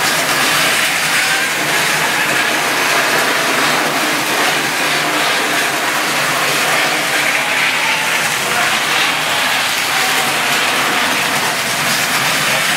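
Tri-ang model trains running on steel track: the steady running noise of small electric motors and metal wheels on the rails, even in level throughout.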